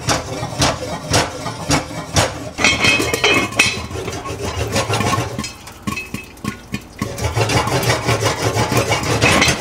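Popcorn kernels popping and rattling in hot bacon fat inside a lidded enameled cast iron pot as it is shaken on the stove: a dense run of sharp pops and knocks over a sizzle, with the pot and lid clattering.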